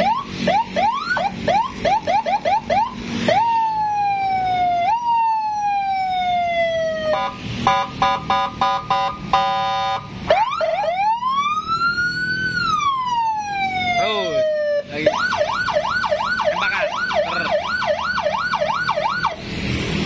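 Custom Senken police-escort siren sounding from its speaker under the bonnet, stepping through several tones: rising chirps that quicken, two long falling sweeps, a rapid pulsing horn-like tone, and a slow wail that rises and falls. It ends in a fast yelp of about three cycles a second, which stops shortly before the end.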